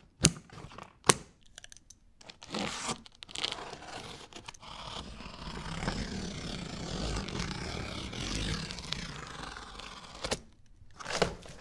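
Scissors snip through plastic packing straps with two sharp clicks, then a blade slices along the packing tape on a cardboard box in a long, continuous scraping and tearing run.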